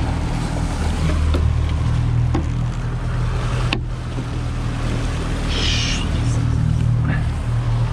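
A 200 hp outboard motor runs steadily at trolling speed, its low hum under a hiss of wind and water along the hull. A single sharp knock about four seconds in.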